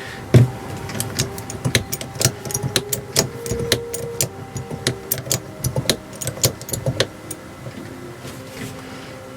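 Quick, irregular metal clicks and clanks from handling the parts of a hydraulic trolley jack, with a heavy knock about half a second in; they stop about seven seconds in.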